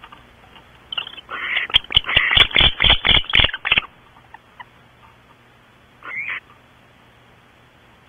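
Barn owls screeching in a harsh, rapid run of hissing bursts broken by sharp clicks for about three seconds, then one shorter screech about six seconds in. It is agitated alarm at an intruding owl near the nest cavity.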